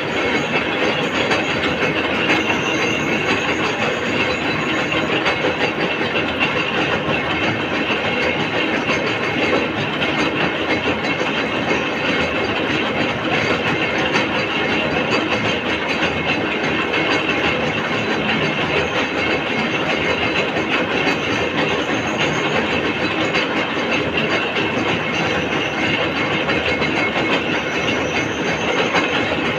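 Gear cutting machine running steadily while cutting a gear, a continuous, even mechanical clatter.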